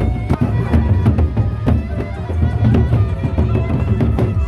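Sasak gendang beleq ensemble playing live: large drums beaten in a fast, dense rhythm, with steady ringing tones over them.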